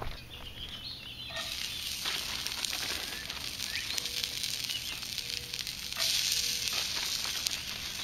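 Diced onions and sweet bell peppers sizzling as they drop into hot oil in a cast-iron skillet over a campfire, with crackling. The sizzle starts suddenly about a second and a half in and gets louder about six seconds in as more of the vegetables go into the pan.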